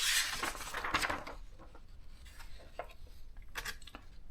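Hands handling an electronic thermal typewriter: a brief rustle and scrape at the start, then a few light clicks and taps.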